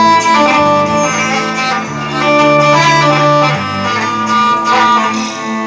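Instrumental interlude of Arabic mawwal accompaniment: sustained melody notes over a bass line that changes note every second or two, with no singing.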